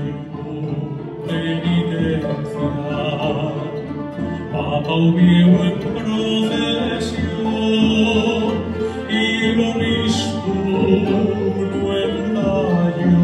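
Live chamber string orchestra of violins and cellos playing a sustained passage together with a reconstructed medieval rota, a plucked string instrument.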